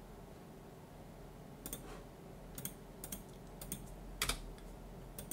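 Computer keyboard keystrokes: a scattered handful of separate key presses starting about a second and a half in, the loudest just past four seconds, over a faint low hum.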